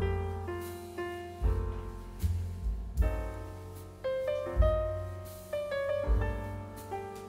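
Background piano music: notes and chords struck every half second or so, each fading away, over deep bass notes.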